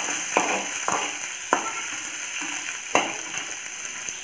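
Chopped onions sizzling in hot oil in a steel kadai while being stirred with a spatula, which knocks sharply against the pan four times over a steady frying hiss.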